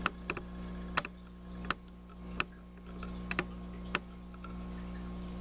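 Sharp, separate clicks about eight times at uneven intervals, from the Samsung camcorder's buttons being pressed to take still pictures, heard through the camera's own microphone over a steady low hum.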